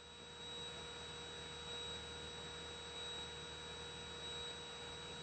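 Faint steady electrical hum with a thin high whine on the aircraft's intercom audio line. The engine and cockpit noise are cut out, leaving only the circuit's own tones and a light hiss.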